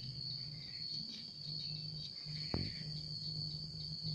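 Metal lathe with a steady low hum and a sharp click about two and a half seconds in, after which the hum firms up as the spindle turns the splined transmission shaft. A constant high-pitched whine sits over it.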